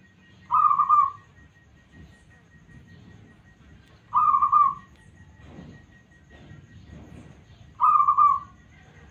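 Zebra dove (local perkutut) cooing: three short, rippling coos, evenly spaced about three and a half seconds apart.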